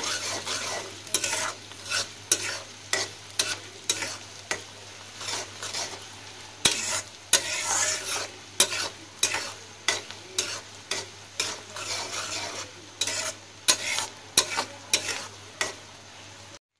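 Onion, garlic and dried red chillies sizzling in hot mustard oil in a karai, frying as the tempering (baghar) for kala bhuna. A spatula scrapes and knocks against the pan about twice a second as it stirs. The sound cuts off suddenly near the end.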